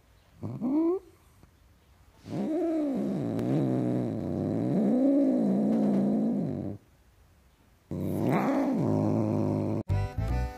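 Cats' voices: a short rising meow, then a long, low, wavering growling yowl lasting about four seconds, typical of a mother cat scolding her kitten, then another brief call. Music starts near the end.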